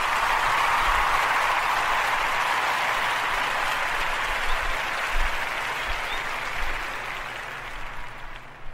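Crowd applause, a steady dense clapping that slowly fades over the last few seconds.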